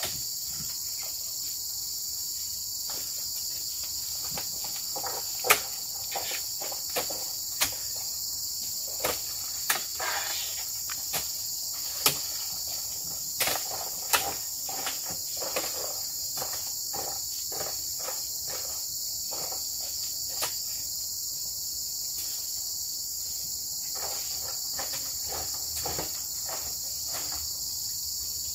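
Steady high-pitched insect chorus, with irregular sharp knocks and thuds as oil palm fruit bunches are thrown and land on a truck and the ground. The knocks come most often in the first half.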